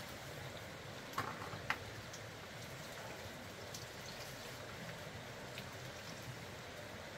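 Steady background hiss with two short sharp clicks, about a second in and again half a second later.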